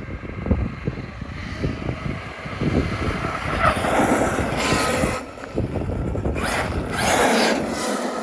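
Arrma Kraton 8S electric RC truck driving on pavement, its motor, drivetrain and tyres swelling loud as it passes close twice, around four and seven seconds in. Wind buffets the microphone throughout.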